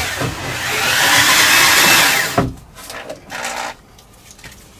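Power drill with a large hole saw cutting through a thin closet wall panel, a loud grinding cutting noise that stops suddenly with a knock about two and a half seconds in as the saw breaks through.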